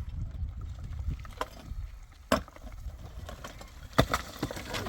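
Irregular sharp knocks and clicks, the loudest about four seconds in, over a low rumble.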